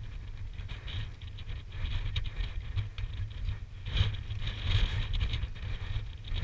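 Wind buffeting a helmet-mounted camera's microphone as a steady, uneven low rumble, with scratchy rustling and small clicks over it, a little louder about four seconds in.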